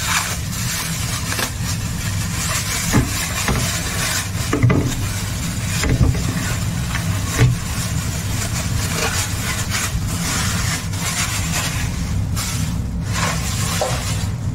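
Thin plastic bag rustling and crinkling as it is handled and squid are tipped out of it into a plastic bowl, with a few soft knocks. Under it runs a steady low hum.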